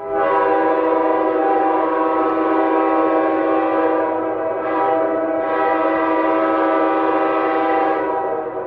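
Nathan K5H five-chime train horn sounding one long sustained blast, a chord of several steady tones, dipping briefly about halfway through and starting to fade near the end.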